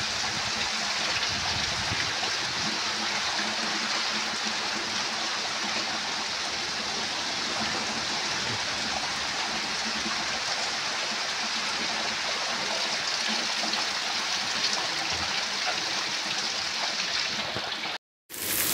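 Heavy rain pouring down in a steady, even hiss, with water running off a roof's eaves. The sound drops out for a moment near the end, then the rain comes back.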